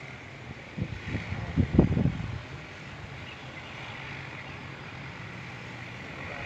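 Multirotor agricultural spraying drone's rotors humming steadily at a distance. A few loud, low thumps come between about one and two seconds in.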